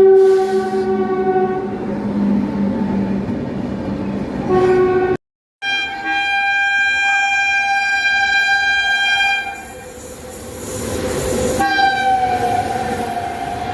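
Indian Railways electric locomotive horns sounding a series of long blasts at differing pitches. A lower blast lasts about four and a half seconds with a short blast after it; after a brief silence comes a higher blast of about four seconds, and near the end another that sags slightly in pitch.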